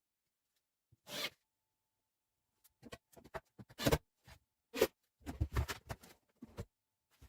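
Short scrapes, rubs and knocks of hand work. One comes about a second in, and a quick irregular run of them follows from about three seconds on.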